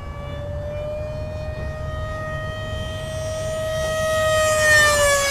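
Whine of the 64 mm electric ducted fan on a BlitzRCWorks F-117 RC jet in flight. It grows louder as the jet passes close, about four to five seconds in, and its pitch drops as it goes by.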